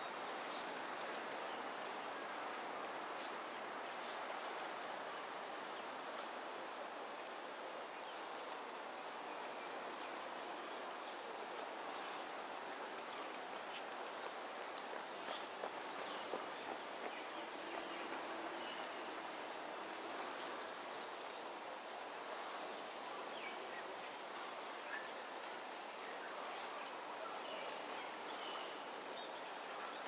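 Steady insect chorus: continuous high-pitched trilling at several pitches at once, unbroken, over a constant background hiss of environmental noise.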